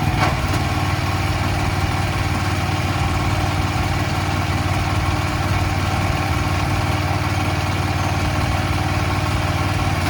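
Aipower APW4400 pressure washer's 459 cc petrol engine running at a steady speed.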